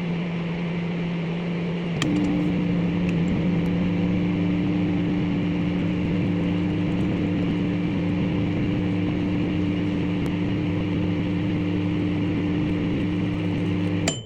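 Microwave oven running with a steady hum. There is a click about two seconds in, where the hum changes slightly, and a sharp click just before the sound cuts off at the end.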